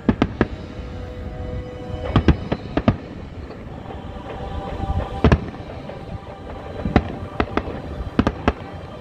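Fireworks shells bursting overhead: sharp bangs in irregular clusters, several in quick succession at times, over faint show music with held tones.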